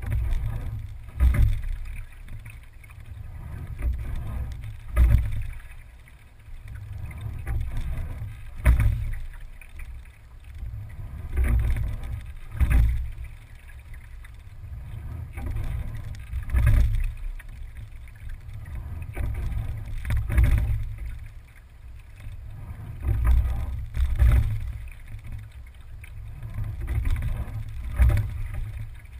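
Single scull being rowed at a steady, easy rate. The oars knock sharply in their oarlocks once each stroke, about every four seconds, and water runs along the hull under a steady low rumble.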